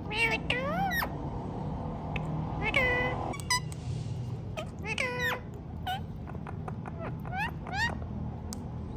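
Ring-necked parakeet calling: three drawn-out calls that bend in pitch, near the start, about 3 s in and about 5 s in, then a quick run of short rising chirps.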